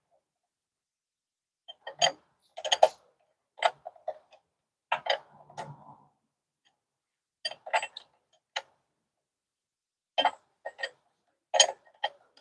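Sharp metallic clicks and clinks in irregular bunches, from a wrench tightening an air-line fitting on a DT12 transmission.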